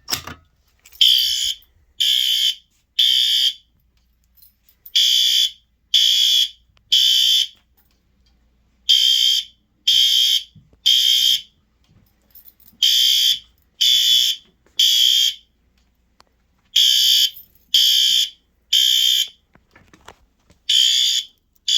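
Synchronized System Sensor L-Series fire alarm horns sounding the temporal-3 evacuation pattern: three short loud blasts, a pause, then again, repeating about every four seconds. The system is in alarm after a manual pull station was pulled.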